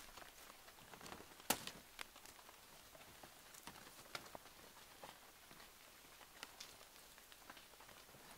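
Faint, scattered clicks and crackles of dry twigs and leaf litter being handled on the forest floor, the sharpest snap about one and a half seconds in.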